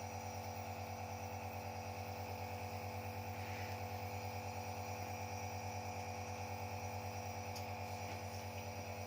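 Baby nebulizer's compressor running: a steady electric hum with a fast, even pulsing.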